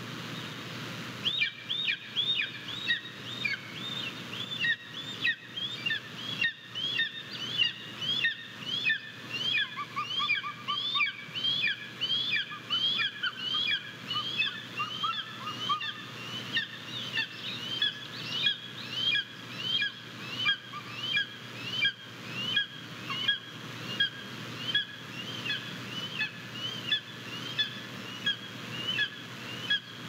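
A young Japanese golden eagle calling over and over: short, high-pitched rising calls about one to two a second, beginning about a second in.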